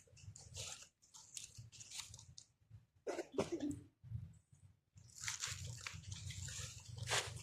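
Irregular crunching and chewing, as of a monkey eating something crisp, in short uneven bursts. There is a brief, lower sound about three seconds in.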